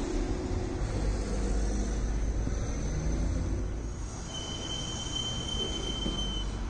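Street traffic rumbling steadily, with a thin, steady high squeal lasting about two seconds in the second half.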